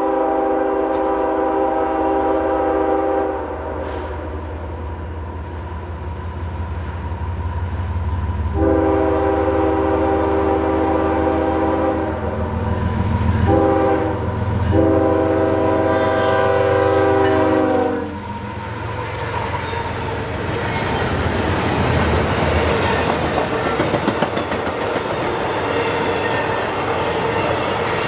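Nathan K5HL five-chime air horn on a CSX GE ES44AH locomotive sounding the grade-crossing signal: long, long, short, long, with the diesel rumble growing as it nears. After the last blast, about two-thirds in, the train's intermodal cars rush past with steady wheel and rail noise.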